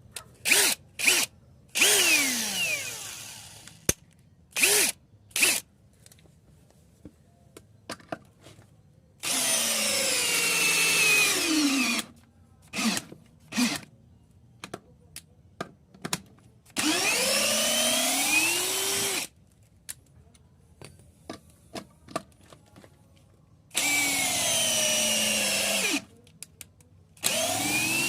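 DeWalt DCD7781 cordless drill run repeatedly: a few quick trigger blips, then several runs of two to three seconds each. The motor's whine rises as it speeds up and falls as it winds down between pulls.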